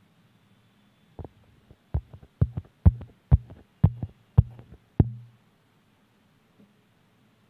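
A quick, uneven run of about a dozen dull thumps and taps over some four seconds, ending about five seconds in.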